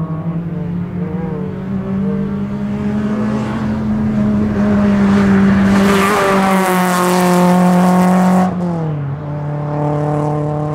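BMW E36 race car's engine pulling hard on track, holding a steady note that grows louder as the car passes close by, with a rush of noise at its loudest. About eight and a half seconds in, the engine note falls suddenly.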